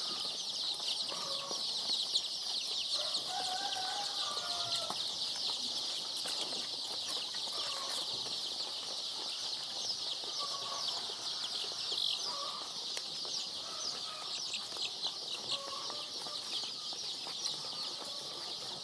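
A large brood of 16-day-old layer chicks peeping continuously: a dense, high-pitched chorus of many overlapping peeps, with a few lower, shorter calls scattered through it.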